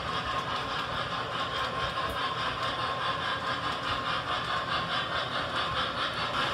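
Model trains running on a layout's track: a steady whirring clatter of motors and wheels with a quick, even pulsing.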